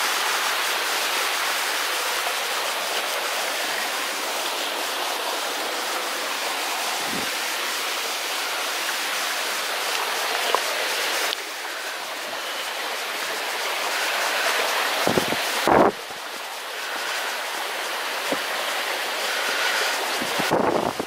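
Steady rushing of flowing stream water, which drops suddenly in level twice. A couple of dull thumps come about three-quarters of the way through.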